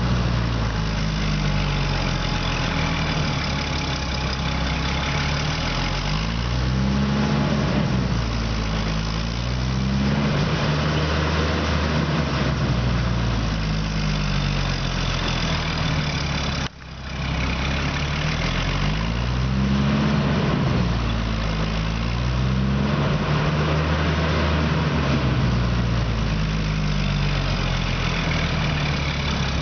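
Oil-well pumping unit (pumpjack) running: a low drive drone whose pitch rises and falls over and over in time with the beam's strokes. A steady hiss runs under it, and the sound drops out for a moment a little past halfway.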